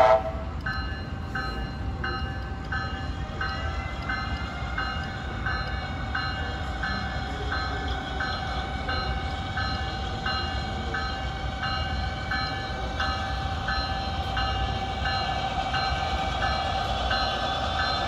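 Sound system of an HO scale model diesel locomotive, its bell ringing in even strokes about one and a half times a second over a steady engine hum while the locomotive moves slowly up to couple onto a train.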